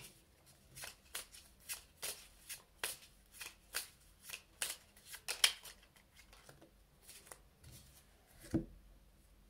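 An oracle card deck being shuffled by hand for a card draw: a steady run of short, crisp card snaps, a couple a second, thinning out after about six seconds.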